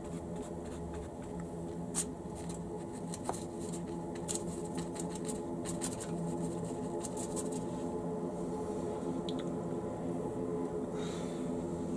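Paintbrush working liquid paint onto a model river bed: a run of quick scratchy ticks and dabs for the first seven seconds or so, over a steady low hum.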